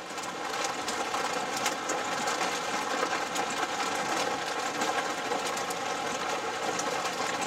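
Steady hiss of rain on a car with the engine humming underneath. A few scattered sharp ticks of hailstones striking the roof and windshield break through it.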